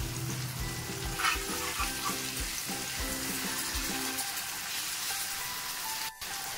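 Pomfret pieces sizzling steadily as they shallow-fry in oil in an iron pan, with a metal spatula turning and pressing them. Background music with a steady beat plays underneath, and the sound cuts out briefly near the end.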